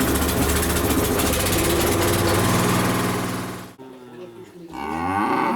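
A small engine runs loudly and steadily, then cuts off sharply a little over halfway through. About a second later a cow starts mooing, one long call with a bending pitch.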